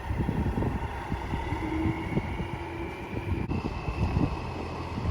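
Wind buffeting the microphone in irregular gusts, with faint steady tones underneath.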